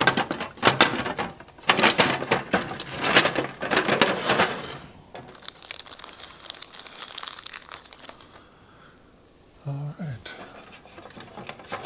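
Small clear plastic parts bag crinkling and rustling, with light plastic clicks as small pieces are handled and fitted. Dense for the first half, softer after that, with a short lull near the end.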